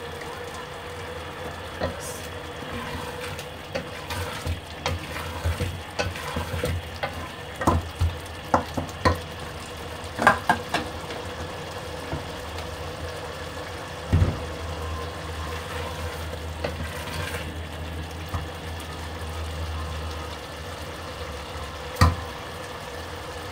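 Wooden spoon stirring minced meat and chana dal in an aluminium pot as it simmers and sizzles in freshly added oil, the liquid being cooked off. The spoon knocks against the pot again and again in the first half, then once more around the middle and once near the end.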